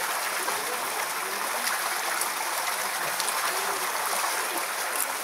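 Steady rush of running water, like a stream or waterfall, with no break or change.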